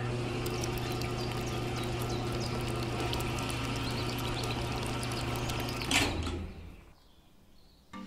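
Small electric motor spinning a toy concrete mixer's drum, a steady hum with the cement mix rattling and hissing inside. It stops about six seconds in and fades to near silence.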